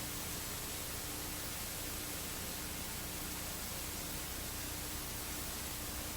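Steady hiss of static with a faint low hum underneath, even and unchanging.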